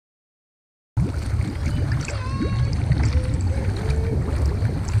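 Silence for about the first second, then pool water sloshing and splashing right against a waterproof action camera at the waterline, with a heavy low rumble.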